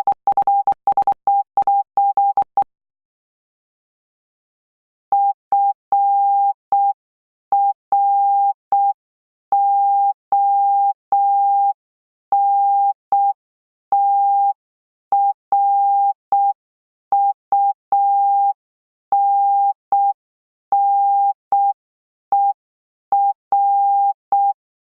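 Morse code practice tone: a single steady mid-pitched beep keyed on and off in dots and dashes, with a faint click at each start and stop. A quick run of code in the first couple of seconds is followed, after a short pause, by slower sending with longer gaps between characters.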